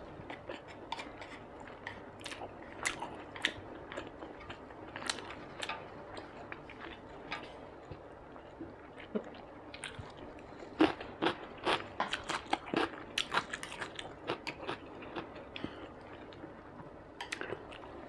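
Close-miked eating sounds: wet chewing with scattered sharp clicks, then a run of crisp crunches from about eleven seconds in as a slice of fresh cucumber is bitten and chewed.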